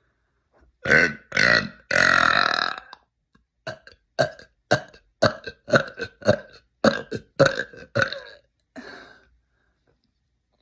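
A woman belching: two short belches, then a long drawn-out one lasting about a second. After that comes a quick string of short belches, about two a second, and a fainter one near the end.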